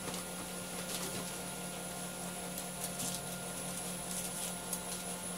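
Faint, scattered small metallic clicks and ticks as the set screws on a lathe's spindle drive pulley are tightened inside the headstock, over a steady low hum.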